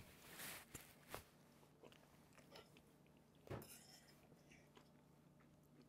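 Faint sounds of people eating custard pecan pie with forks: soft chewing with a few light clicks and taps, the loudest about three and a half seconds in.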